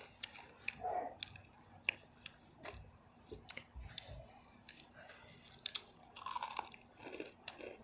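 People crunching and chewing Takis rolled tortilla chips: irregular crisp crunches, busiest around six seconds in.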